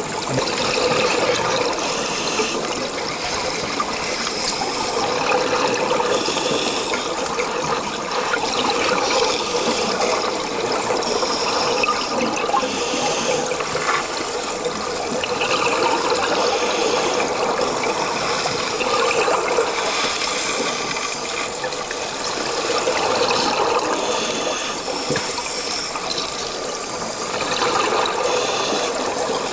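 Underwater bubbling and gurgling from scuba divers' breathing gear: exhaled air bubbling from the regulators, swelling and easing every few seconds.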